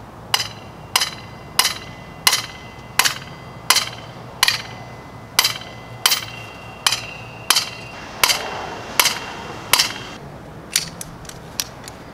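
A small sledgehammer striking the top of an 8-foot copper ground rod about fourteen times, at roughly three blows every two seconds, driving it the last of the way into the ground. Each blow is a sharp metallic clank with a brief ring. The blows stop about ten seconds in, followed by a few light clicks.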